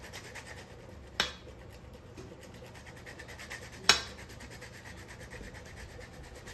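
Fast, even scraping strokes from kitchen work, with two sharp knocks about a second in and about four seconds in, the second the louder.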